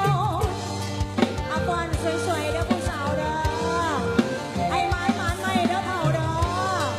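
Lam sing band music: a wavering, gliding sung melody over a steady bass line and a regular drum beat.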